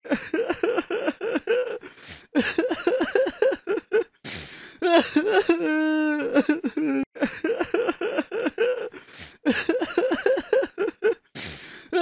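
A person crying: quick, broken sobbing catches, a gasping breath in, then a long wavering wail. The same sob-and-wail pattern starts over about seven seconds in.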